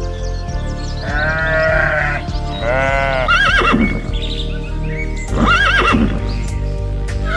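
Farm animal calls over steady background music: two long calls rising and falling in pitch, then shorter calls later on.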